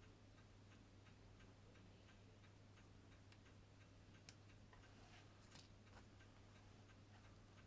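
Faint, rapid, even ticking of an Elgin grade 144 pocket watch movement running, over a low steady hum. A couple of slightly sharper small clicks come around the middle.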